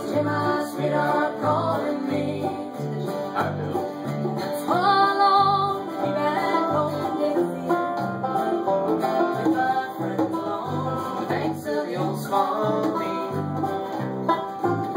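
Banjo and acoustic guitar jamming together on an upbeat tune, the banjo picking bright rolling notes over the guitar's strumming. Steady low bass notes fall about twice a second.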